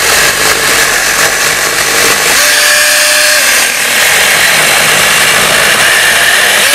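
King cordless one-handed mini electric chainsaw with an 8-inch guide bar, its chain cutting steadily through a thick tree branch. The motor's whine rises and holds for about a second midway through the cut.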